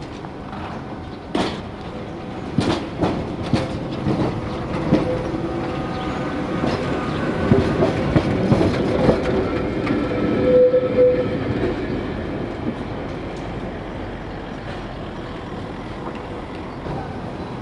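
Two-axle Gotha tram passing close by, its wheels clicking sharply over rail joints several times. The sound builds into a steady rumble with a short ringing tone about ten seconds in, then fades away.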